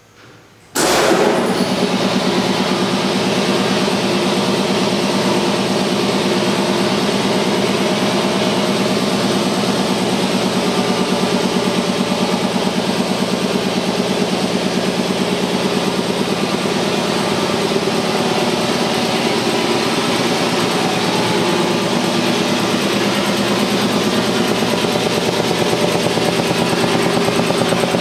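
2008 DVAir by DEVAIR 5 hp vertical air compressor starting up about a second in: its Baldor electric motor and piston pump kick on suddenly and then run steadily with a rapid, even pulse as the pump fills the tank.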